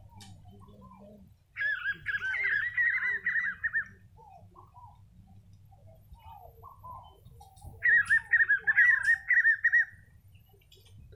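Spot-backed puffbird singing: two runs of quick, repeated rising-and-falling whistled notes, each about two seconds long, the first about one and a half seconds in and the second in the second half. Fainter scattered calls come in between.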